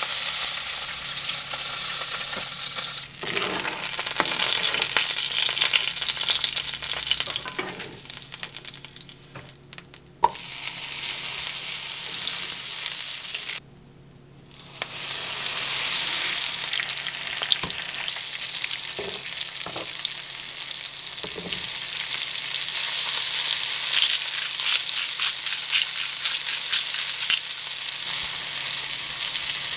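Oil sizzling and crackling in a frying pan as halved onions, garlic cloves and pieces of Korean leek fry. The sizzle cuts out briefly about halfway through.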